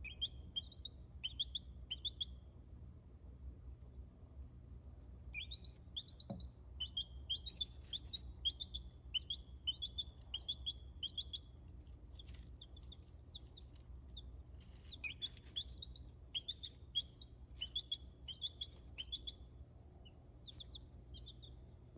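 Baby chicks peeping: runs of short, high peeps, several a second, with a pause of about three seconds early on, over a faint, steady low hum.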